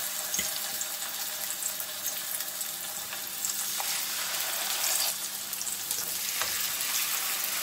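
Whole spice-marinated Nola fish sizzling in hot oil in a non-stick frying pan, a steady hiss as the fish are laid in one after another, with a few faint clicks of metal tongs against the pan.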